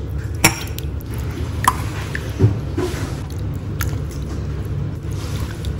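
A metal ladle scooping soup from a pot into a ceramic bowl: about four sharp clinks of metal on the pot and bowl, with broth splashing in, over a steady low hum.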